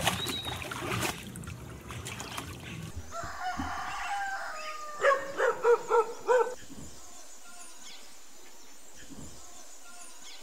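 Domestic fowl calling: a few softer pitched calls, then five loud short calls in quick succession about halfway through.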